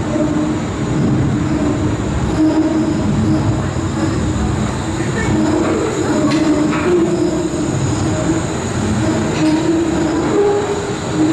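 Wuppertal Schwebebahn suspended monorail car running in close by, its steel wheels and motor bogies rumbling along the single overhead steel rail, with wavering squeal-like tones over a steady rumble.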